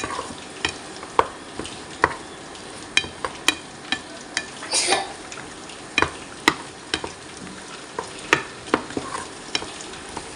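Pork pieces sizzling in a pan of fish sauce as they are stirred and tossed with a long wooden utensil, which knocks against the pan in irregular sharp clicks, with a longer scrape about five seconds in. The fish sauce is reducing and coating the outside of the meat.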